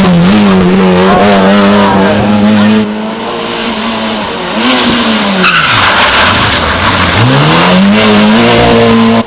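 Rally car engine held at high revs, which drop away about three seconds in. Tyres then slide with a loud hiss while the revs fall low, and the engine climbs back to high revs near the end.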